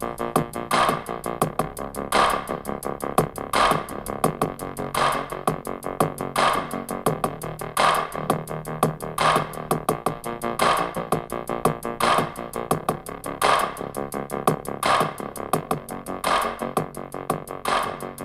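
Instrumental stretch of a hip-hop track, synth keyboard over a drum-machine beat with a strong hit about every second and a half and quick hi-hat ticks between, played through an Edifier G200 Bluetooth speaker.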